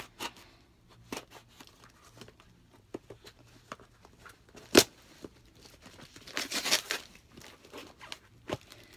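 A package being cut open with small scissors and torn: scattered sharp snips and clicks, one loud click a little before the middle, and a rustling tear of the wrapping lasting about a second about two-thirds of the way through.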